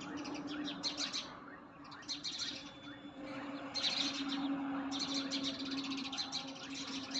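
A flock of house sparrows chirping in rapid, overlapping bursts, which the owner calls an irritating sound and takes as a sign that a cat or monkey is sitting nearby. A faint steady low hum lies underneath.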